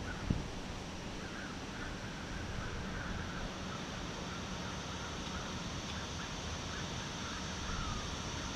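Steady wind rustling through trees, with faint bird calls chirping through it for several seconds.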